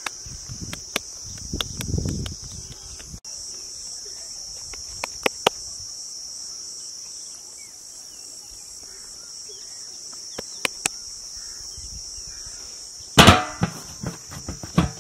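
Insects chirring steadily at a high pitch, with a few soft clicks. Near the end, a loud thump as a lump of dough is set down on a metal tray, then quick pats as hands press it flat.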